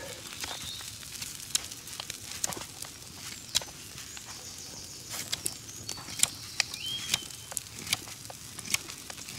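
Wood campfire crackling with irregular sharp pops over the faint, steady hiss of meat sizzling. Mixed in are the scrapes and clicks of a knife whittling a small stick into a makeshift spatula.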